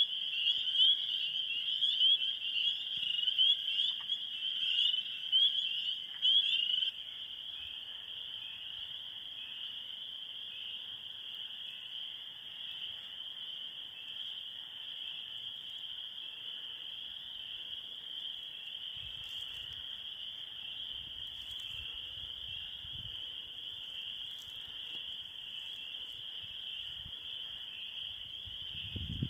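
A swamp chorus of frogs and insects calling. A louder, fast-pulsing chorus cuts off suddenly about seven seconds in, leaving a steady high-pitched chorus.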